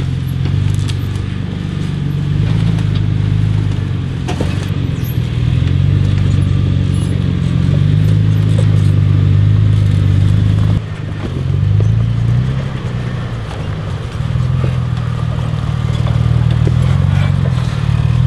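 Toyota 4Runner's V6 engine running at low revs while the truck crawls over trail rocks, its low note rising and falling with the throttle. The sound drops away briefly about eleven seconds in.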